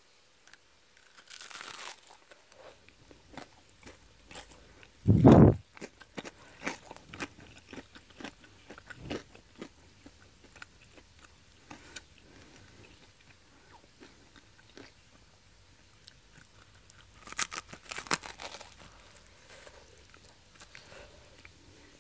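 The crisp coating of a fried chicken tender crunching and crackling as the piece is broken open and bitten. Short crunches are scattered throughout, with a loud thump about five seconds in and a louder burst of crunching near the end.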